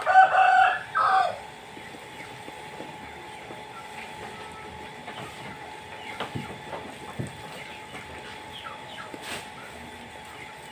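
A sheep bleats once near the start, a loud steady-pitched call broken into three short pieces. The rest is quiet, with faint scattered rustles and crunches of sheep feeding on cut grass at the trough.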